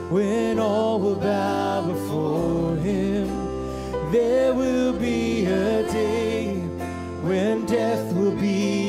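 Worship song played by a live band: a man sings the lead over guitar and a drum kit, with a steady low bass note that shifts every couple of seconds.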